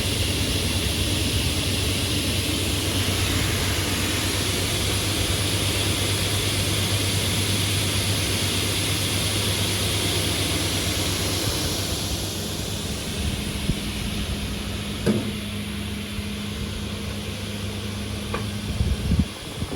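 SCM S 350 WS sliding table saw running with a steady hum; a louder, hissier stretch eases off after about twelve seconds, and a few sharp knocks come near the end.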